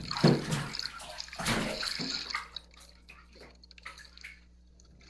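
Pool water splashing and gurgling, loudest in the first couple of seconds, then dying down to faint drips and small splashes.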